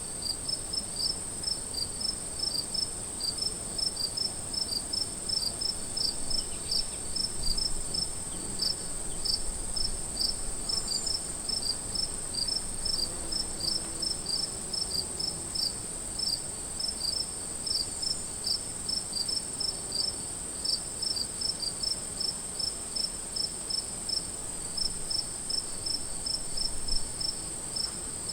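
Crickets chirping on an afternoon: a steady high trill with evenly repeated chirps, a few a second, going on without a break.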